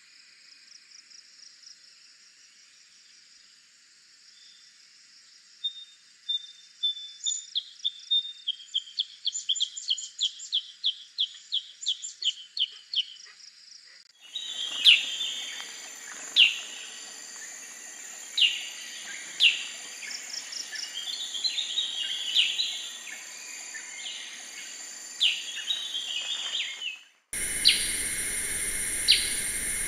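Black-headed bulbul calling: a quick run of chirps from about six to thirteen seconds, then, after an abrupt change of recording, sharp downward-sweeping call notes every second or two. Steady high insect droning runs under the calls and grows louder after a second cut near the end.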